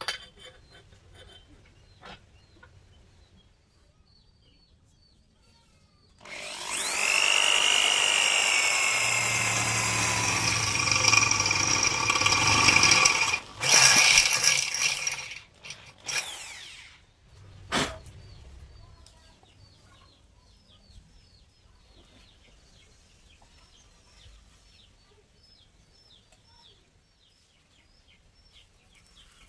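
An electric power tool running in bursts: a long run of about seven seconds with a steady high whine, then two shorter runs, followed by a single sharp click.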